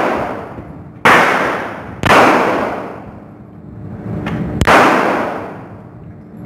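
Gunshots at a shooting range: three sharp reports about a second, two seconds and four and a half seconds in, each trailing off in about a second of echo.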